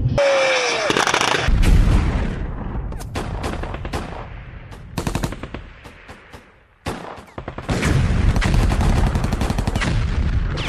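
Rapid bursts of automatic weapon fire mixed with single loud shots, with a brief falling whine near the start. The firing thins out almost to quiet around six seconds in, then resumes with a sharp bang and dense fire.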